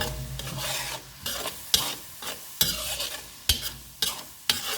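A utensil stirring and scraping in a frying pan, knocking against it every half second or so, over the sizzle of bacon, onions and garlic frying in a little oil.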